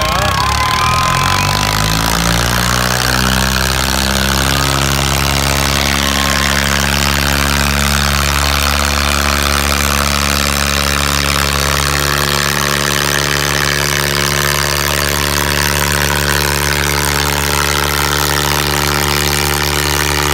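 The diesel engines of a Swaraj 855 and a John Deere 5310 tractor rev up over the first couple of seconds, then run steadily at full throttle under heavy load as the two tractors, hitched back to back, pull against each other in a tug of war.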